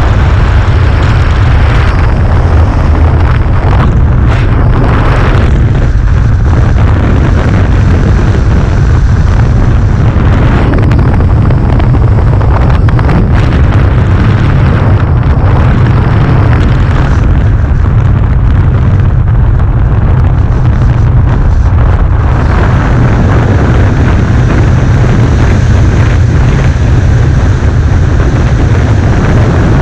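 Wind buffeting the camera microphone during a tandem parachute descent under an open canopy: a loud, steady, deep rumble of wind noise that does not let up.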